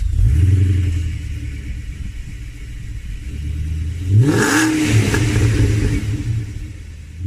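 Audi S6's 4.2-litre V8 engine running, with one quick rev about four seconds in: the pitch rises sharply and then settles back to a steady run.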